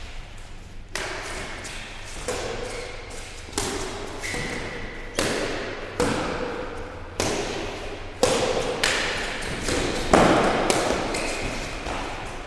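Badminton racquets hitting a shuttlecock in a rally: about nine sharp hits, roughly a second apart, each ringing on briefly in a hall's echo.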